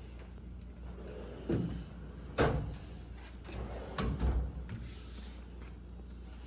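Steel drawers of a Yukon roll-cart toolbox being handled and pulled out on their ball-bearing slides, with a few knocks and clicks; the sharpest click comes about two and a half seconds in.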